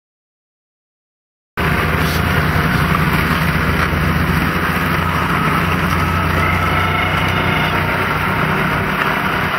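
Dead silence, then about a second and a half in a motor vehicle's engine starts up abruptly in the sound track and runs steadily under a loud rush of wind noise.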